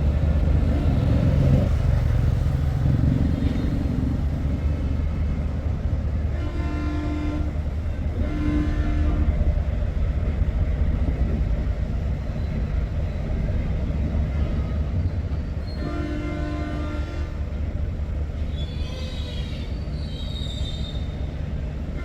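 Diesel locomotive running with its train, the engine a steady low rumble. Its horn sounds three times: two short blasts close together about seven seconds in, then a longer blast near sixteen seconds.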